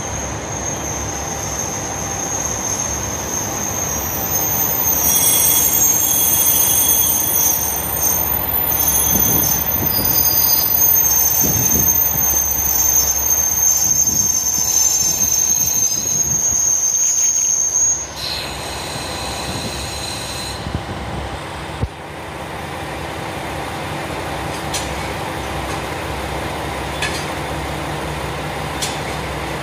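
KiHa 47 diesel railcar train creeping into the platform, its wheels squealing in a high, steady tone for most of the first eighteen seconds. The squeal then stops, leaving the diesel engines idling steadily, with a single sharp knock a few seconds later.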